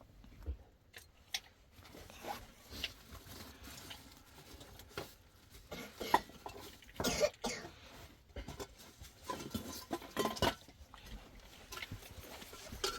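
A person coughing a few times, the strongest coughs in the second half, among small knocks and handling noises.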